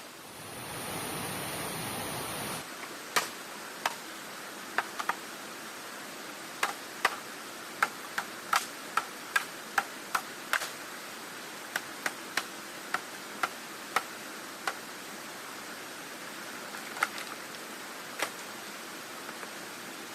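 A steady hiss, louder for the first two seconds or so, then a run of about twenty sharp, irregular knocks or taps.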